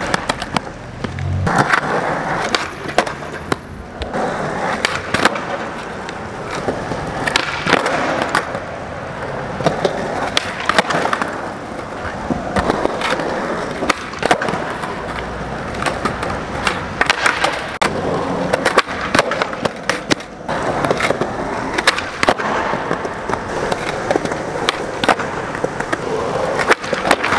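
Skateboard on Tensor Mag Light trucks rolling on smooth concrete during flatground tricks, with many sharp clacks as the tail pops and the board lands and slaps back down.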